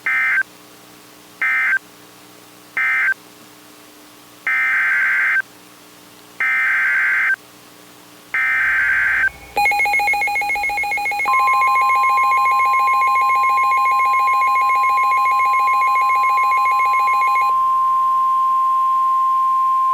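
NOAA Weather Radio SAME data bursts: three short end-of-message bursts, then three longer header bursts announcing the next warning. These are followed by a fast-pulsing electronic alert beep and the steady 1050 Hz warning alarm tone, which lasts about nine seconds.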